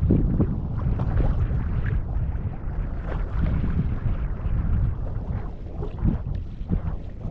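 Wind buffeting the microphone: an uneven low rumble that swells and eases in gusts.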